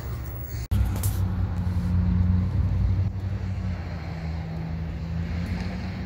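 Walk-in cooler condensing unit running, a steady low hum. It breaks off for an instant a little under a second in, then carries on unchanged.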